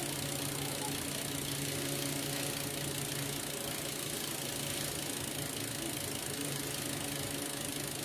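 Shimano RS100 rear hub freewheeling as the rear wheel spins on the stand, its freehub pawls clicking so fast they blend into a steady buzz.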